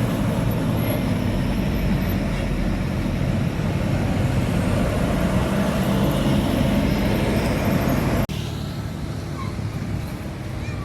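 Large diesel bus engine running close by amid road traffic; about eight seconds in the sound cuts abruptly to quieter traffic.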